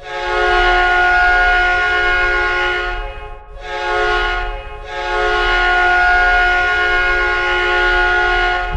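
Hockey arena goal horn, the Winnipeg Jets' 1992-93 horn, sounding a loud chord of steady tones in three blasts: a long blast of about three seconds, a short one of about a second, and a long final blast of nearly four seconds.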